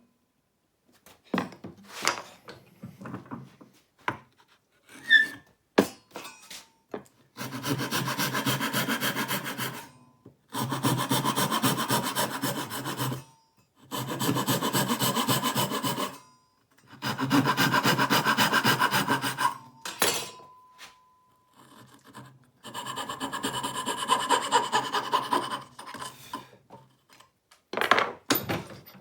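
A few scattered knocks and taps, then five spells of fast hand sawing in wood, each two to three seconds of rapid strokes with short pauses between them. The saw is a Vaughan Bear pull saw cutting dovetails.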